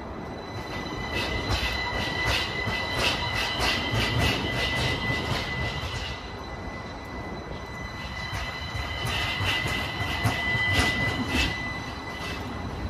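Streetcar rolling slowly along street rails with a steady high-pitched wheel squeal in two stretches, over a run of quick clicks and a low rumble.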